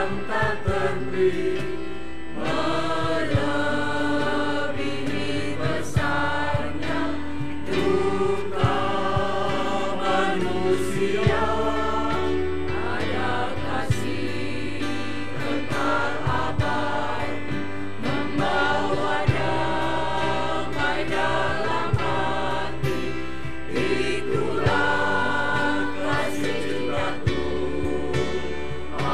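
Mixed church choir singing a hymn in Indonesian.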